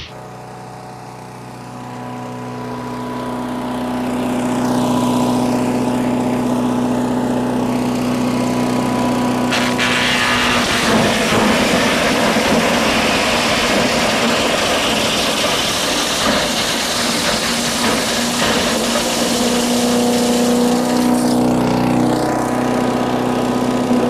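Harbor Freight gas-engine chipper shredder running steadily, its engine building up over the first few seconds. From about ten seconds in, a loud grinding rasp joins it as the machine chews up 2x12 lumber.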